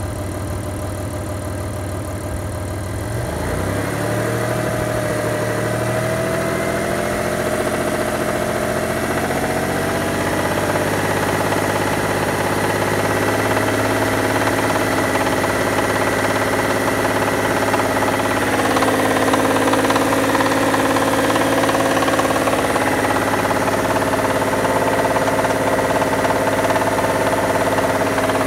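Mitsubishi 6G73 GDI V6 engine idling warm with a knock in it, which the owner fears means the engine needs a major overhaul. The sound grows louder about three and a half seconds in and then holds steady.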